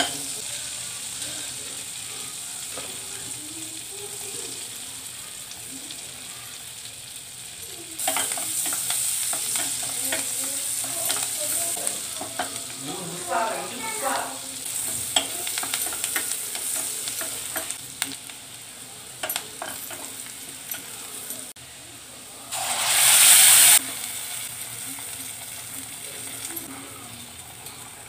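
Hot oil sizzling in a steel pressure cooker as bay leaf, green chillies and garlic fry, with a wooden spatula stirring and scraping in small clicks. The sizzle gets louder about eight seconds in, and later a loud hiss flares for about a second before dying back.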